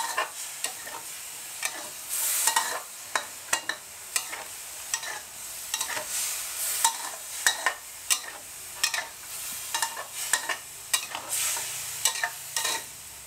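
Metal spatula scraping and clinking against a steel wok as a stir-fry of barometer earthstar mushrooms and minced pork is stirred, with frequent sharp irregular clinks over a steady sizzle of frying curry paste and coconut milk.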